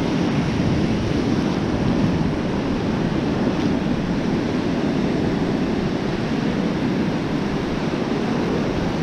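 Steady rush of ocean surf, with wind rumbling on the microphone.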